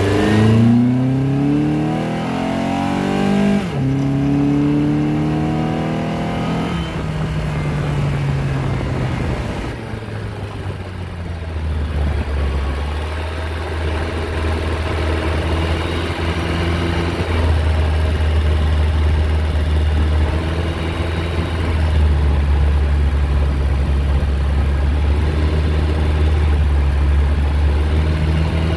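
Honda Accord VIII's 2.4-litre K24Z3 four-cylinder, heard at its custom open intake with a K&N filter and the intake resonator removed, pulling up through the revs. About four seconds in the pitch drops sharply as it shifts up, and it rises again briefly. It then settles into a steady low drone while cruising.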